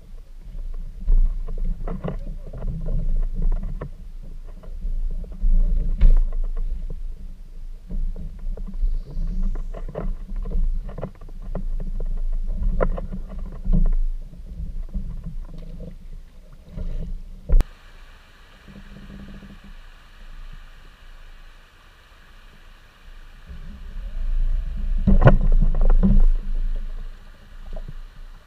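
Low rumble and frequent knocks from a rotomolded plastic fishing kayak (Jackson Kayak Coosa HD) as the angler shifts his weight and handles gear, picked up through a camera mounted on the hull. About two-thirds of the way through it changes abruptly to a steady rush of flowing creek water past the kayak, with a few more knocks near the end.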